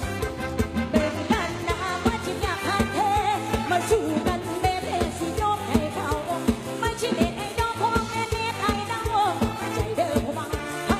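Live lam sing band music: a singer's ornamented vocal line over a steady, driving drum beat.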